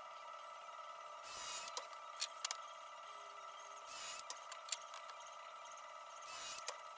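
Cordless drill run in a few short bursts, driving screws into reclaimed barnwood boards, with scattered light clicks and knocks of handling at the bench. All of it is faint.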